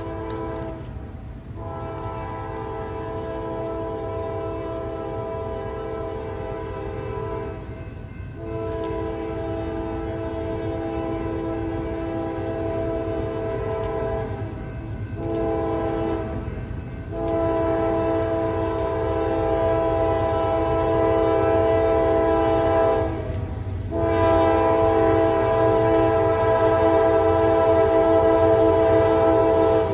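Norfolk Southern freight locomotive's air horn sounding a chord in long blasts with one short one, the long-long-short-long grade-crossing signal, then starting another long blast. The train's rumble runs underneath, and both grow louder as it approaches.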